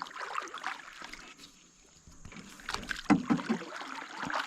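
Water splashing and sloshing, with scattered small knocks and clicks and a louder burst of them about three seconds in.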